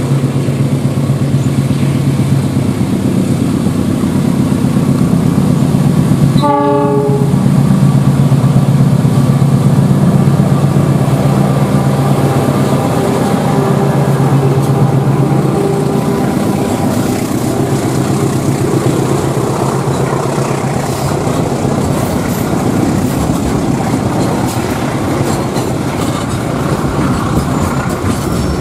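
KAI diesel locomotive hauling a container freight train passes close by, its engine running with a steady low drone, with a short horn blast about six seconds in. In the second half the engine gives way to the rumble and clatter of the container wagons' wheels over the rail joints.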